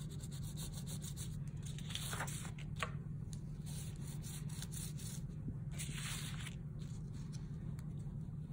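A wax crayon laid on its side, rubbed back and forth across drawing paper in repeated strokes, over a steady low hum.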